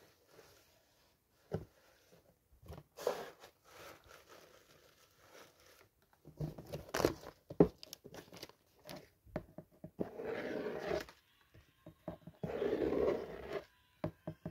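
Paper and a paper box handled by hand: tissue paper crinkling and stiff paper rustling and tapping in irregular bursts, then two longer stretches of fingers rubbing and scratching across a crayon-coloured paper sheet near the end.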